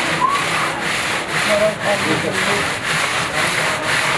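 Steady rhythmic scraping and rubbing, about two strokes a second, with faint short chirps or voices in the background.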